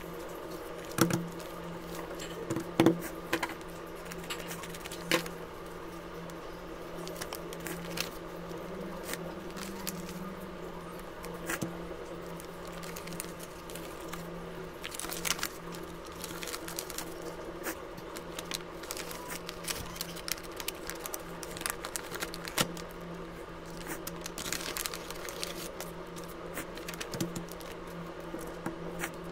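Paper cut-outs being handled on a tabletop: scattered light taps and rustles, the sharpest about 1 and 3 seconds in, over a steady low hum.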